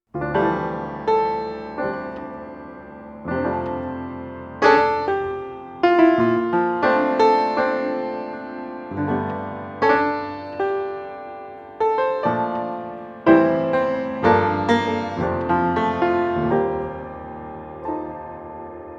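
Background piano music: struck chords and notes that ring and fade, in a slow, steady pattern.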